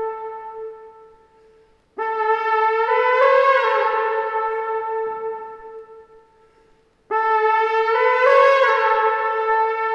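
Polish highlander's wooden shepherd's horn blowing long calls on a single note. One call fades out, then two more begin about two seconds and seven seconds in. Each steps briefly up to a higher note about a second after it starts, then drops back and slowly dies away.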